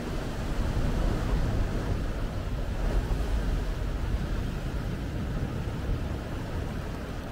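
Ocean surf: small waves breaking and washing up a sandy beach beside rocks, a steady rushing that swells about a second in and eases a little toward the end.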